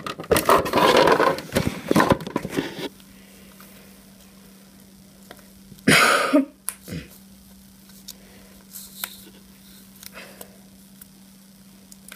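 Rustling and knocking as a phone camera is handled over plastic toys, then a quiet stretch with a faint steady hum, broken by one short, loud, noisy burst about six seconds in.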